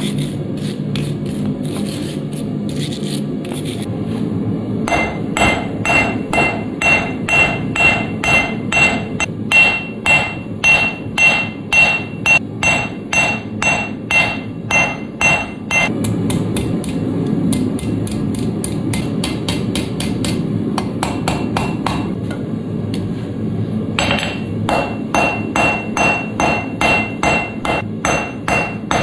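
Blacksmith's hand hammer striking hot steel on an anvil in a steady rhythm of about two blows a second, the anvil ringing with each strike, as the steak flipper is forged. The hammering stops for several seconds in the middle, then resumes at the same pace.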